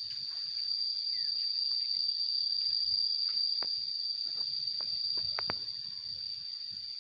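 Insects in the surrounding vegetation, a steady, even high-pitched buzz that does not change, with a few short clicks from handling in the second half.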